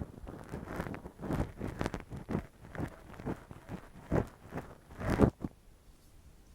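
Close-miked ASMR scratching and rubbing in irregular strokes, crackly and uneven, stopping about five and a half seconds in.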